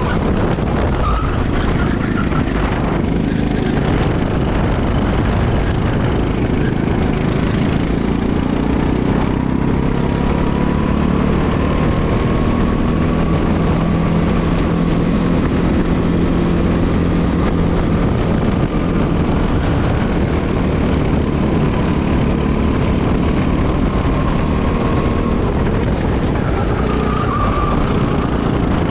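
Go-kart engine heard from the driver's seat, running under power down a straight, its higher whine climbing slowly as the kart gains speed and dropping near the end as it slows for a corner.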